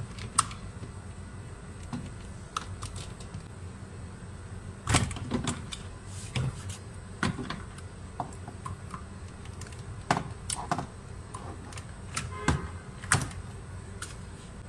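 Irregular plastic clicks and knocks as the driver's-side master power window switch is worked loose from the door trim. A steady low hum runs underneath.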